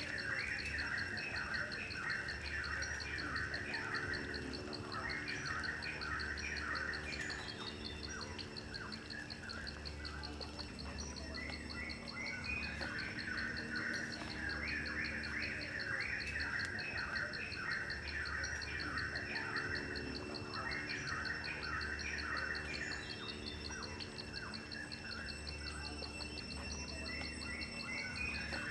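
Birds chirping in bouts of quick calls every few seconds, over a steady, fast insect trill, with soft sustained low tones beneath.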